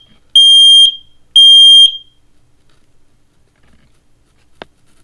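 Kidde smoke alarm sounding during a test: the last two beeps of its three-beep fire-alarm pattern, each a loud, steady, high tone about half a second long, a second apart. Then quiet, with a single faint click near the end.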